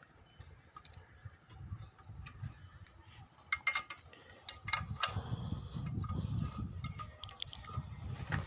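Scattered light metallic clicks and taps as parts of a petrol generator are handled and removed during a repair, with a low rumble setting in about halfway through.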